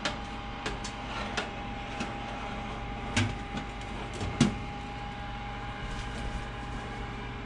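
Countertop air fryer oven running with a steady fan hum and a thin steady whine, while its wire basket is slid back onto the rack and the door handled: a few light metal clicks and knocks, the loudest about three and four and a half seconds in.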